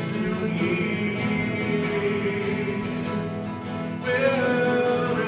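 Group singing accompanied by strummed acoustic guitar, the voices holding long notes.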